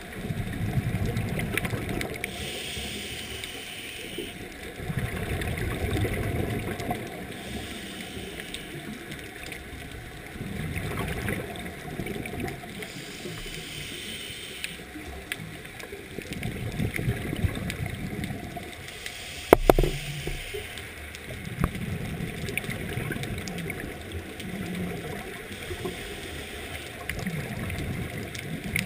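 Scuba breathing underwater, muffled through the camera housing: the rumble of exhaled bubbles from a regulator swells and fades about every five seconds, with hissing inhalations between. A sharp knock about twenty seconds in.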